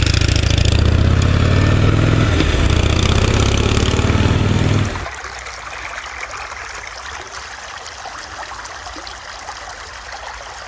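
A vehicle engine running steadily with a deep low rumble, which cuts off abruptly about five seconds in, leaving a quieter steady hiss of road noise.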